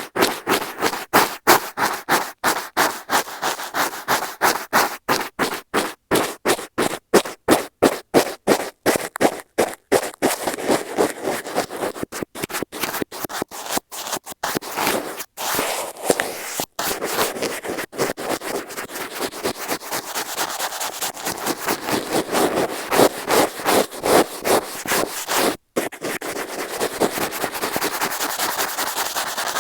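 Makeup brush bristles swept back and forth right against a wired Apple earphone microphone, giving a close, scratchy brushing. Separate strokes come about two or three a second at first, then after about ten seconds the brushing turns faster and more continuous.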